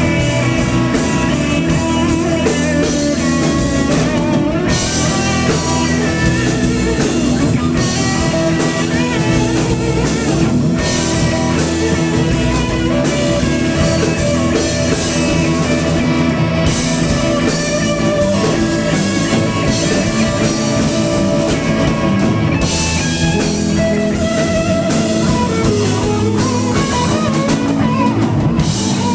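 Live rock band playing loudly: electric guitars, bass, drum kit and keyboards together in a dense, steady groove.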